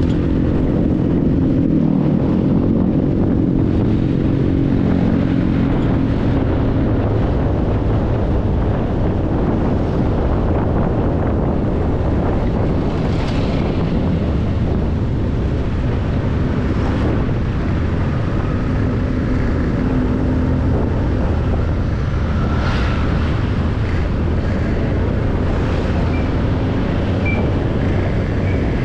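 Motorcycle engine running steadily under way, mixed with wind buffeting the bike-mounted microphone; the engine's pitch is clearest in the first few seconds, and a few brief sharper sounds cut in later.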